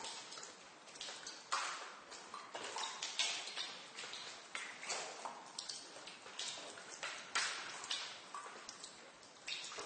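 Water drops falling irregularly in a basement, several sharp plinks a second, each ringing on in the echoing room.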